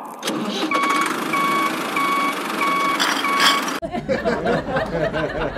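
Truck reversing: a backup alarm beeps about every 0.6 seconds over the running engine, six beeps in all. It stops abruptly a little past the middle, and a voice follows.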